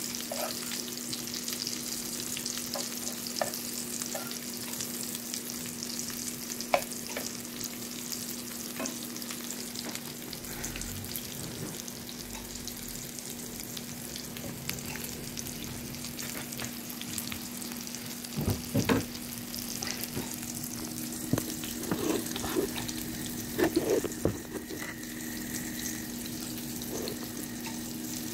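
Egg-battered meat loaf slices and bell pepper rings sizzling in hot oil in a frying pan, over a steady low hum. A metal spatula taps and scrapes against the pan now and then, with a cluster of louder knocks past the middle.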